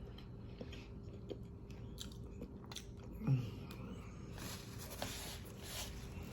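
Close-up mouth sounds of a person biting and chewing a chicken sandwich, with small wet clicks and soft crunching. About three seconds in there is a short low murmur that falls in pitch.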